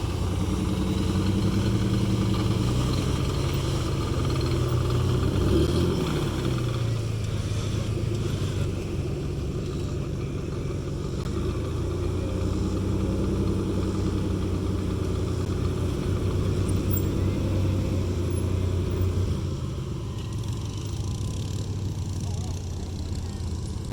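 Off-road vehicle's engine running under load, its pitch rising and falling with the throttle.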